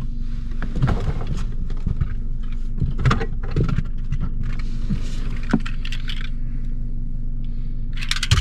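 Inside a moving car's cabin: a steady low road and engine rumble with scattered small clicks and rattles from loose toys in the back.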